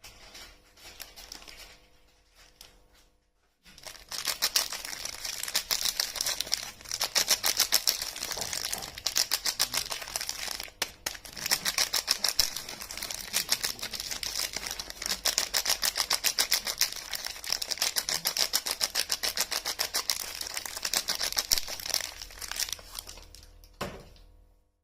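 Soap packaging crinkling and tearing as bar soaps are unwrapped by hand: a dense run of rapid crackles that starts a few seconds in and stops shortly before the end.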